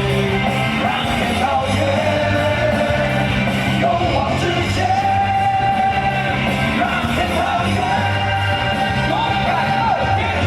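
Loud rock song with a singing voice and steady bass and drums, with yelling or shouting mixed in.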